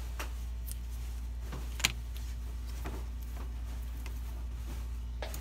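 A few small, sharp clicks and taps of metal tweezers and handling on a power supply circuit board, the loudest about two seconds in and another near the end, over a steady low hum.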